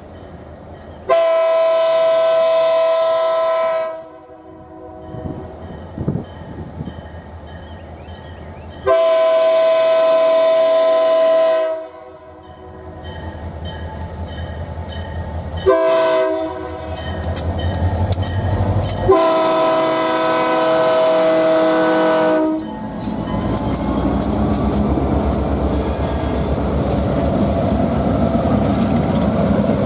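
Diesel freight locomotive's multi-tone air horn sounding the grade-crossing signal: long, long, short, long. The engine grows louder as it approaches, then the locomotives rumble past with wheels clicking over the rails for the last several seconds.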